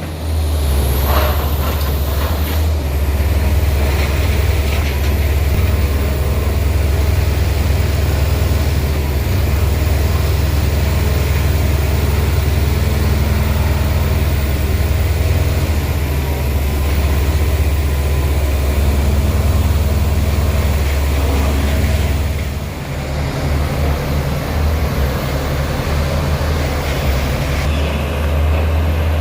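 Heavy diesel engine of large earthmoving or hauling equipment running steadily with a deep, low drone, easing off briefly about three quarters of the way through before picking up again.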